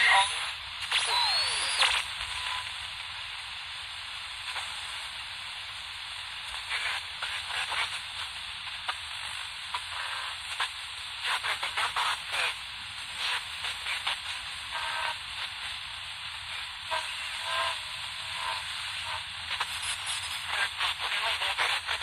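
Atlanfa portable world-band receiver being tuned across the shortwave band, its speaker giving steady static hiss with scattered crackles and clicks. A brief rising whistle comes about a second in, as the dial passes a signal.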